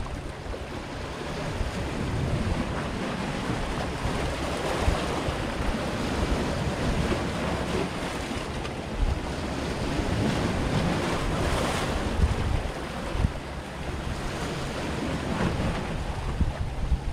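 Sea swell washing against shoreline rocks in slow surges, loudest about two-thirds of the way through, with wind rumbling on the microphone.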